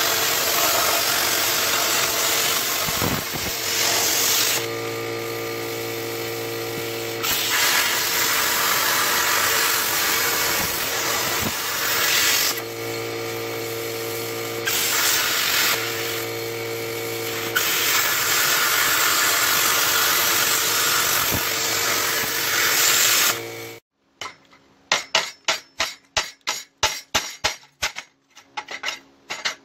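MIG welding arc crackling and hissing in long continuous runs, with three brief breaks of a few seconds where a steady hum comes through. The arc stops abruptly about 24 seconds in, followed by a quick, irregular run of sharp taps and clicks.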